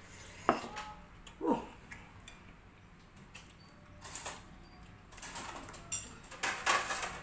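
Close-up eating sounds: a man biting, sucking and smacking at saucy duck adobo eaten by hand, in short wet bursts, a couple early on the second, then a denser run in the last two seconds.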